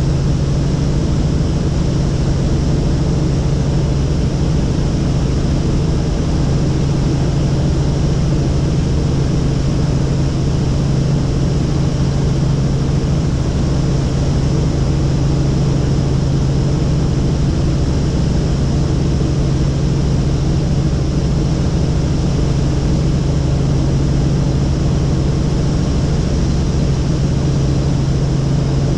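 Helicopter in flight heard from inside the cabin: a loud, steady drone of engine and rotor with a constant low hum.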